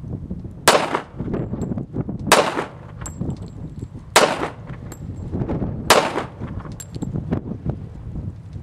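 Four pistol shots, evenly spaced about one and a half to two seconds apart, each a sharp crack with a short echoing tail.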